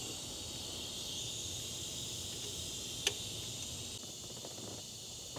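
Steady high-pitched hiss of background noise, with one sharp click about three seconds in.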